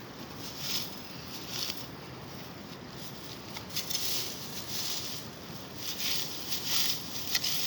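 Repeated swishing and rustling of grass being cut and handled by hand, about one stroke a second and quicker in the second half, with a few sharp clicks near the end.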